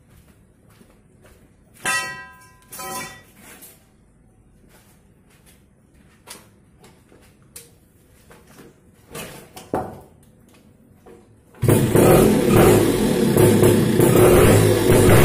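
Homemade trail bike with a Yamaha F1ZR two-stroke engine: a few light knocks and clicks as it is handled, then almost twelve seconds in the engine is kick-started, catches at once and runs loud, revved.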